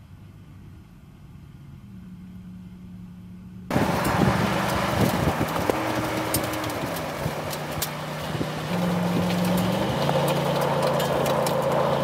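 Ford F-150 SVT Raptor's V8 running hard across loose lakebed sand. It is distant and faint at first, then suddenly close and loud about four seconds in, with the engine note rising and falling and a crackle of sand and grit thrown by the tyres.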